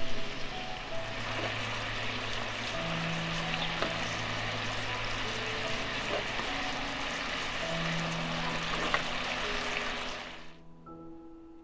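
Food sizzling and crackling in a hot frying pan, over background music with sustained notes; the sizzle cuts off suddenly near the end.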